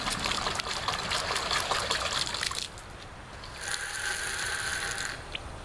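Water splashing for about two and a half seconds. Then a toilet tank fill valve hisses as it sprays water for about a second and a half before shutting off sharply: the valve cycling on and off as its float height is being adjusted.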